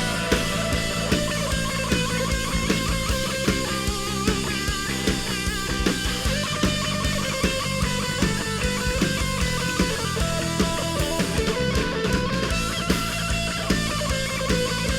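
Live rock band playing an instrumental section with no vocals: electric guitar carrying the melody over bass and a steady drum beat.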